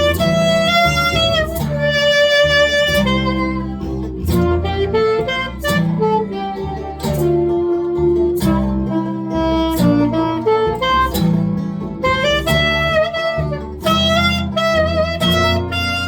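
A live folk band playing an instrumental passage: a sustained reedy melody line over strummed acoustic guitar chords, with a sharp percussive stroke about every second and a half.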